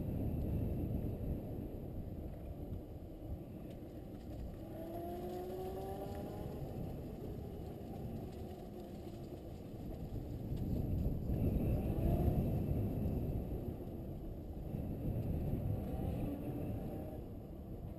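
Low wind rumble and handling noise on a camera's microphone as it moves along a paved path, with a few faint rising whines about a third of the way in and again later.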